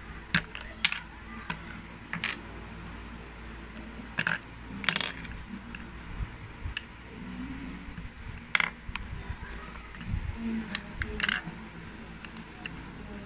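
Plastic Lego bricks clicking and clacking as they are handled and pressed onto a small brick-built machine, with sharp clicks at irregular intervals.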